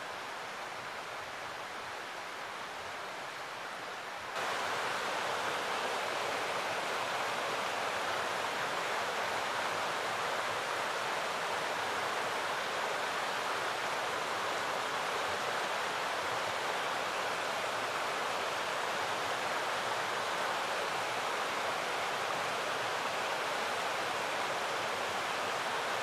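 Mountain stream rushing over boulders: a steady wash of water that steps up louder about four seconds in.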